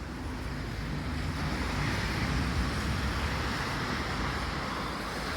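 Road traffic passing: a vehicle's tyres hissing on a wet road with a low rumble, swelling about two seconds in and slowly easing.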